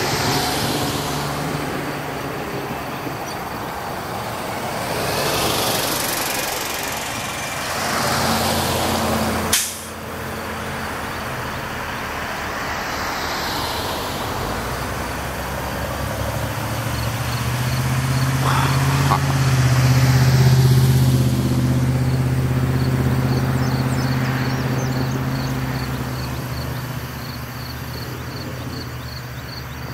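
Road traffic passing on a wet road, with the hiss of tyres. There is a sharp click about a third of the way in. In the second half a bus or truck engine runs close by for several seconds, a steady low drone.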